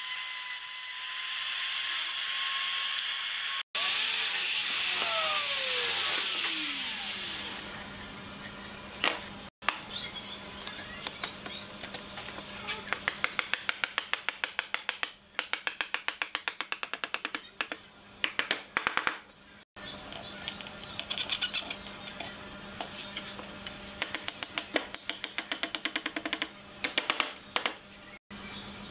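Compact trim router cutting a groove in pine, then switched off, its motor winding down in a falling pitch over a few seconds. After that, background music with a fast clicking beat.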